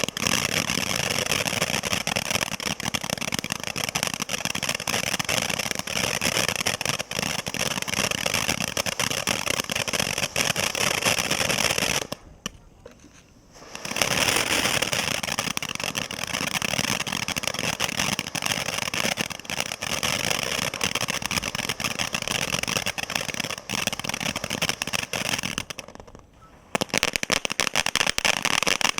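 Consumer firework fountains hissing and crackling continuously, one after another. The sound drops out briefly twice as one fountain burns out and the next takes over.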